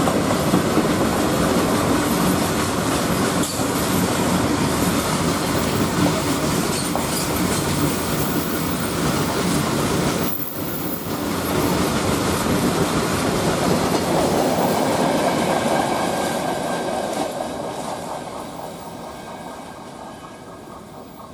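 Indian Railways freight train of covered open wagons rolling past, with a steady rumble and clatter of wheels on the rails. The sound fades away near the end as the brake van passes and the train recedes.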